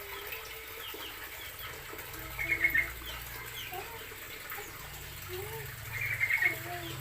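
Birds calling: two short bursts of rapid high chirping, about two and a half seconds in and again near the end, among scattered shorter, lower calls.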